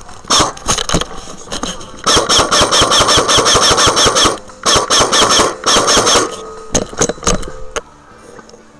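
Airsoft guns firing: a few single shots, then two long full-auto bursts of about two seconds and a second and a half with a whine under each, then a few more single shots near the end.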